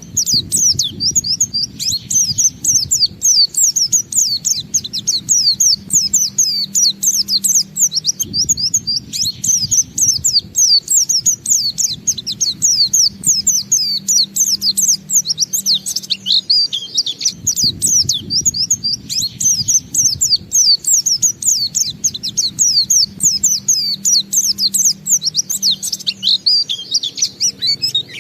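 White-eye (pleci, Zosterops) singing its long, unbroken 'ngalas' song: a rapid, continuous run of high, quick, mostly falling twittering notes with barely a break.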